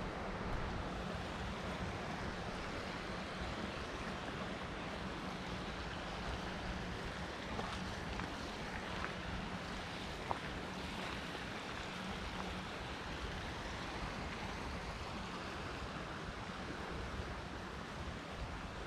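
Steady rushing of a river rapid, an even wash of water noise that eases slightly toward the end, with a few faint clicks.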